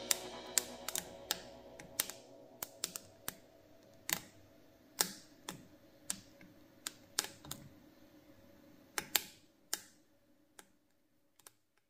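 Irregular sharp crackles and pops from green chili peppers roasting on an aluminium hot plate, their skins blistering as they heat. The pops come every fraction of a second to about a second apart and grow fainter toward the end.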